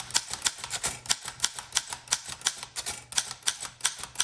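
1914 Corona 3 typewriter being typed on: a steady run of sharp keystroke clacks, about five a second.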